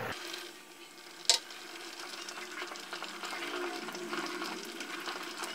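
A pot of soup simmering while wooden chopsticks stir it, as tapioca-starch slurry is stirred in to thicken it; one sharp click about a second in.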